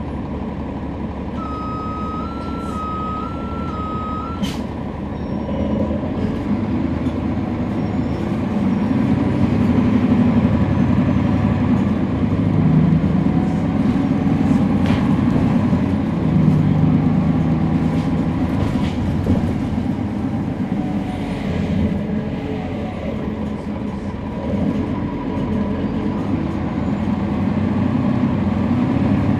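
Interior of a NABI 40-SFW transit bus heard from the rear: Cummins ISL9 diesel and ZF Ecolife six-speed automatic transmission running, the transmission making most of the noise, growing louder about eight seconds in. Near the start an electronic two-note beeping plays for about three seconds.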